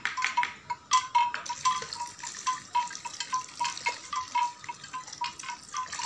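A solution of EM4 bioactivator and sugar water being poured from a plastic bowl into a tub of blended fruit mash, splashing and trickling in an uneven patter.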